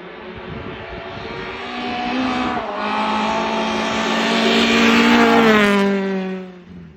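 Rally car approaching at speed, its engine note building louder, then passing by with the pitch dropping as it goes away.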